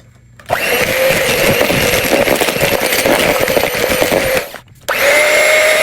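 Electric mixer running in the cookie batter with a steady whine, beating butter, sugar, egg and vanilla together; it runs about four seconds, stops briefly, then runs again for about a second.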